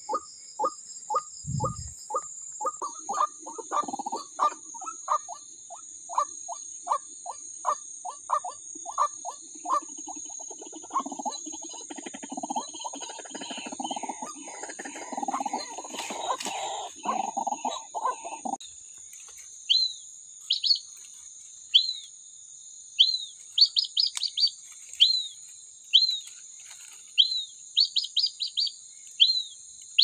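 White-breasted waterhen calls: a run of loud, evenly spaced 'kwak' notes about two a second, thickening into a stretch of croaking in the middle. In the last third they give way to high, falling chirps about one a second.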